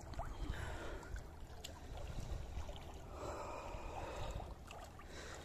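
River water sloshing and splashing as a person moves through it, in two spells, over a steady low rumble.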